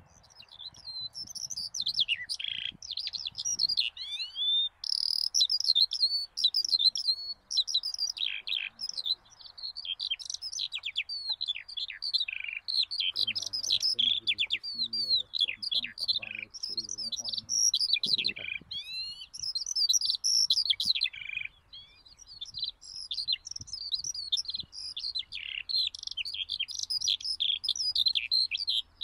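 A songbird singing a long, continuous, varied song of quick high chirps and downward-sweeping notes, broken only by short pauses.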